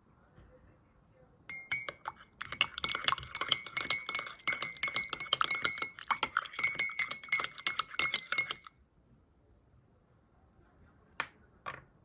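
A spoon stirring a drink in a glass, clinking quickly and repeatedly against the sides with a ringing tone for about seven seconds. Two single taps follow near the end.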